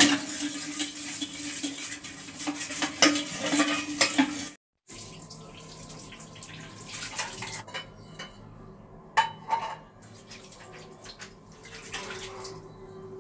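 Metal puja vessels of steel and brass clinking and scraping against each other and the floor, with water splashing from a tap. After a sudden break about four and a half seconds in, there are only quieter, scattered clicks.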